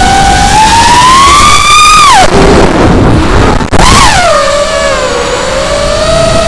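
The brushless motors of a 5-inch racing quadcopter (RS2205s), whining with the throttle as heard from the onboard camera. The pitch climbs over the first two seconds, cuts out for about a second and a half, leaving only a rush of noise, then comes back with a sharp rising whine and settles lower.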